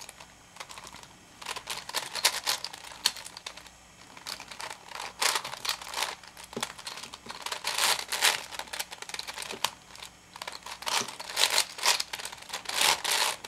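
Plastic layers of a V-Cube 7 (7x7x7 puzzle cube) being turned quickly by hand: many short, irregular clicking and scraping turns.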